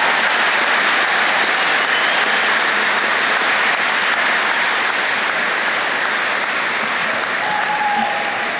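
Large audience applauding, a dense and steady clapping that eases a little near the end.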